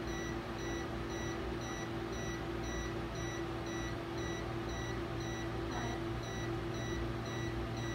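Endovenous laser console sounding its emission tone while the laser fires: short high beeps repeating steadily about twice a second, over a steady low hum.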